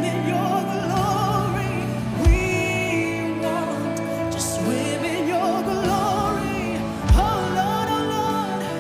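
Live worship music: a singer's wordless, wavering vocal line over sustained chords, with two deep thumps about two seconds in and again about seven seconds in.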